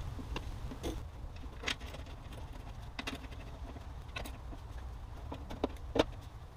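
Scattered clicks and light knocks of hands handling plastic parts around an engine bay's air intake box, the loudest knock about six seconds in, over a low steady rumble.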